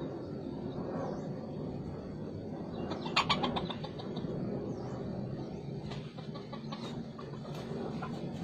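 A chicken gives a short burst of calls about three seconds in and a few softer ones later, while a small bird repeats a faint high chirp about every second and a half, over a steady low background noise.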